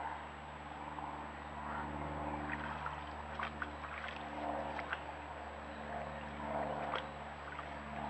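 A moose feeding on grass at close range: scattered short crackling and crunching sounds, bunched in the middle and near the end, over a steady low electrical hum.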